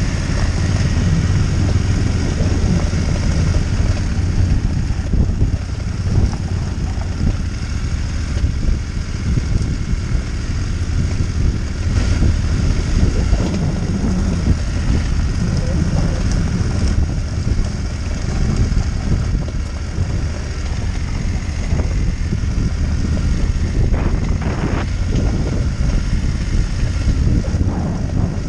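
Adventure motorcycle engine running steadily under way on a gravel track, heard from the bike's own camera, with wind rushing over the microphone.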